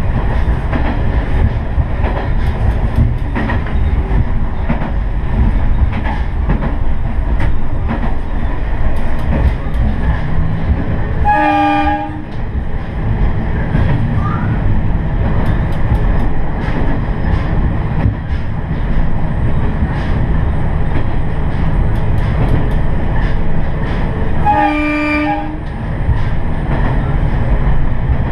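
Diesel railcar running along the line, with steady engine and wheel-on-rail noise and scattered clicks from the track, sounding its horn in two short blasts about 13 seconds apart.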